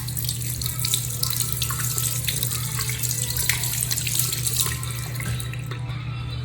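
Tap water running into a sink basin, splashing, then shutting off near the end, over a steady low hum.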